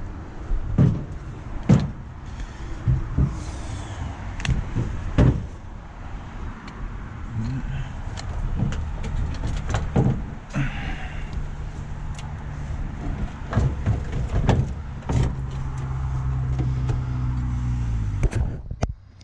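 A few sharp knocks, then the starter cranking the 1985 GMC 3500's 6.2-litre Detroit diesel for about ten seconds without the engine catching, cutting off abruptly near the end: the truck's crank-no-start fault.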